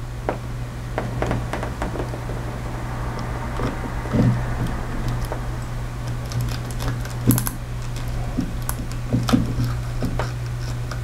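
Small clicks, taps and scrapes of a fan capacitor's wire leads and plastic case being worked into the slots of a power strip outlet, over a steady low hum.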